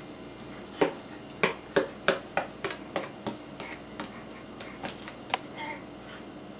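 A baby tapping a plate: a run of about a dozen light, sharp clicking taps at an uneven pace, roughly three a second.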